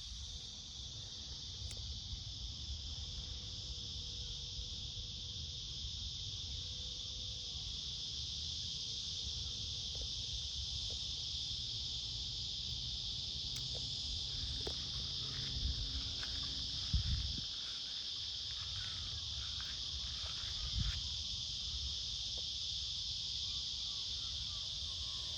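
Steady chorus of insects shrilling without a break, with a low rumble underneath.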